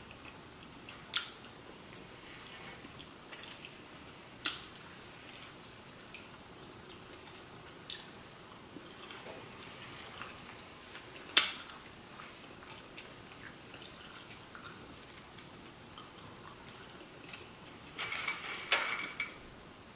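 Close-up eating sounds: scattered sharp clicks and taps against a ceramic plate as fried wings and shrimp are picked up and eaten, the loudest about eleven seconds in, with a quick run of clicks near the end.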